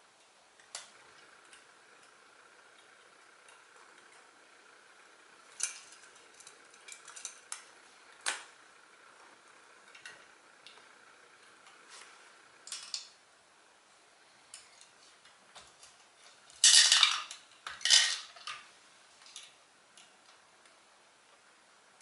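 Light plastic clicks and knocks from a hand-worked 1/34-scale First Gear Mack TerraPro garbage truck model with a Heil Freedom body, as its Curotto Can arm is moved and lifted over the cab. Two louder rattling clatters come about three quarters of the way through.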